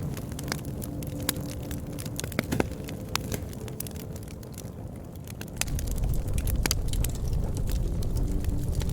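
Bonfire burning: wood crackling with sharp, irregular pops and snaps over a low rumble of flames, the rumble growing louder about six seconds in.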